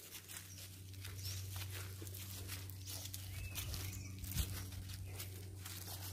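Footsteps and rustling on dry, leaf-strewn ground as someone walks, over a steady low hum, with a dull thump a little past the middle and a faint bird chirp or two.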